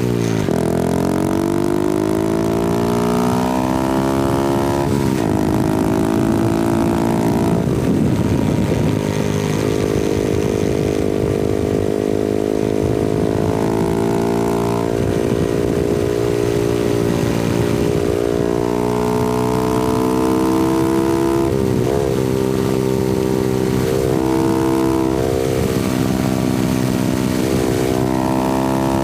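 Honda Grom's 125cc single-cylinder engine and exhaust on the move, its revs drifting up and down as it pulls and engine-brakes downhill. Several times the pitch drops sharply and jumps back up at gear changes, with some wind noise mixed in.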